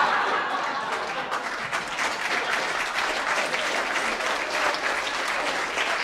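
Audience applauding: a dense patter of many hands clapping, loudest in the first second, then steady.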